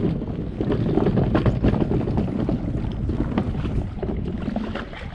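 Inflatable dinghy being pushed down a stony, seaweed-covered foreshore into the water: irregular crunching and scraping of stones under the hull and its launch wheels, with wind buffeting the microphone. It gets quieter near the end as the boat reaches the water.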